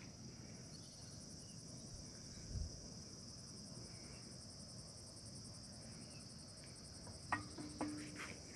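Insects chirring in the vegetation: a steady high-pitched drone with a fast, even pulsing trill above it. A couple of sharp clicks come about seven seconds in.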